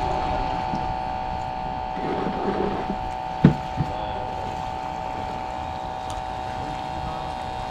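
A steady motor hum with a low rumble, and a single sharp knock about three and a half seconds in.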